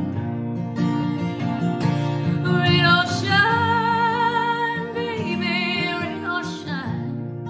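A woman singing with her own acoustic guitar, which is strummed steadily throughout. From about two and a half seconds in she holds one long, wavering sung note, which ends about a second before the close.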